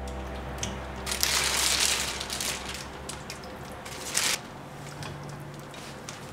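A crunching, crinkling noise for about a second, then a shorter one, over soft background music.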